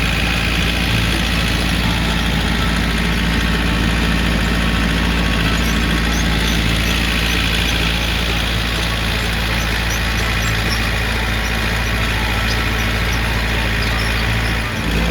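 Farm tractor engine running steadily under load while pulling a hay rake through the field.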